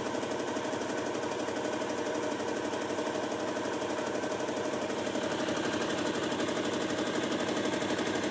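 Electric-motor-driven spin dryer, a washing-machine drum loaded with soaked paddy straw, spinning at full speed. It makes a steady mechanical whirr with a fast, even rattle that grows slightly louder about halfway through.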